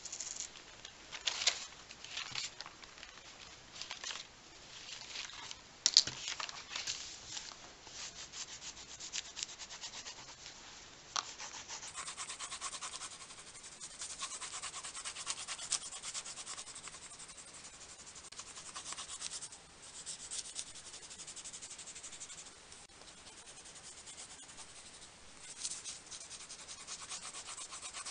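A few sharp rustles and knocks as the journal's pages are handled, then a Derwent Inktense pencil shading back and forth on thin journal paper: a fast, steady scratching rub.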